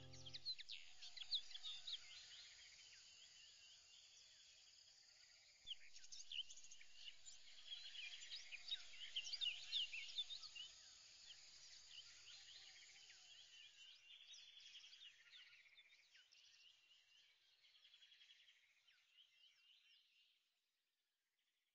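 Faint birds chirping, with many quick high chirps and trills that thin out and fade away near the end.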